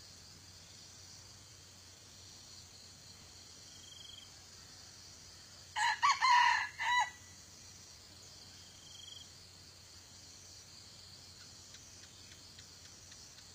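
A rooster crows once, about six seconds in. The crow is short, about a second and a half, and broken into several quick parts. A steady high insect drone runs underneath.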